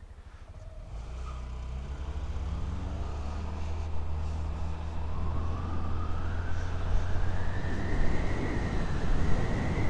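Honda Activa scooter pulling away from a stop and accelerating: its single-cylinder engine and belt-drive automatic transmission give a whine that climbs steadily in pitch. Wind noise on the microphone grows with speed.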